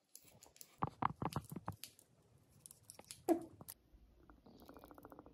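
A few soft knocks and clatters of kitchen handling, then a single clunk with a brief ring about three seconds in. Near the end olive oil starts glugging out of a bottle's metal pour spout into a nonstick frying pan, a fast, even gurgle.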